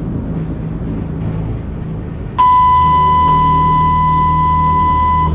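Low cab rumble of an EP1 electric locomotive slowing to a stop. About two and a half seconds in, a loud, steady, high electronic warning beep sounds in the cab and holds for about three seconds before cutting off near the end.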